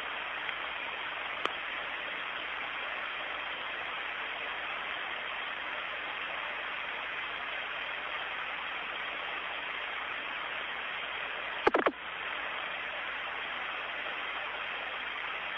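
Steady radio static hiss on an open air-to-ground voice channel, thin like a radio link. There is a faint click about a second and a half in and a short, loud crackle a little before twelve seconds in.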